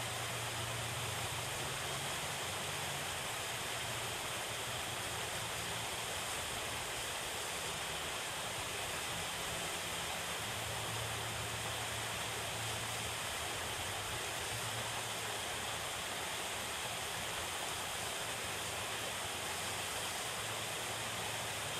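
Steady rush of water pouring over a stone spillway dam into the pond.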